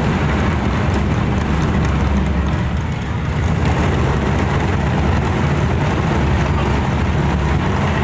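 Many red barrel drums played together by an ensemble, blending into a steady, loud, low rumble with no separate beats standing out.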